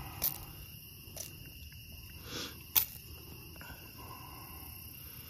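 Steady night chorus of crickets, a few high, even trills held throughout. Over it come a few sharp clicks and a short rustle from pliers and handling as a deep-set hook is worked out of a bowfin's mouth. The loudest click comes a little under three seconds in.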